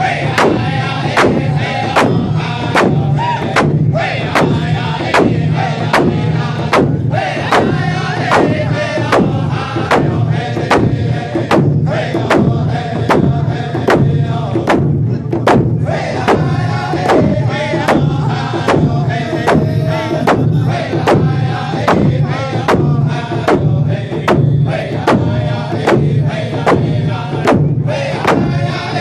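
Group of men singing a round dance song together while striking rawhide hand drums with sticks in a steady, even beat.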